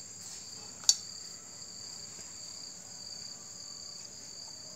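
Crickets chirping steadily in a high, even trill, with a single sharp tap about a second in.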